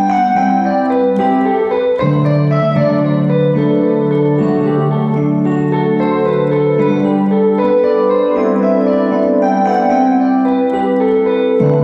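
Keyboard music: held organ-like chords with a piano-like attack, changing about every two seconds at a steady level.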